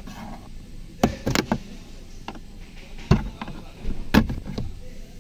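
Plastic trim of a Toyota Corolla's instrument-cluster hood being pried with a flat-head screwdriver and pulled by hand: sharp plastic clicks and snaps, a quick run of them about a second in and single ones near three and just after four seconds, with rubbing and handling noise between.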